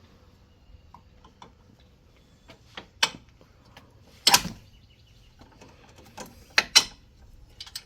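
Scattered sharp metallic clicks and clanks of nuts, bolts and rack parts being handled while assembling a Thule Piston Pro X hitch bike rack. The loudest clank comes about four seconds in, and a quick pair follows near the end.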